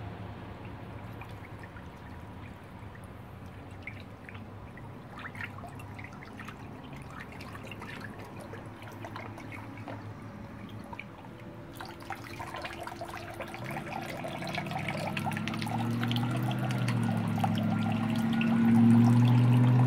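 Water splashing and dribbling in a plastic hydro-dip tub as the painted buffer tube is worked in it, then water pouring and trickling off the lifted tube back into the tub near the end. A low hum grows louder over the last few seconds.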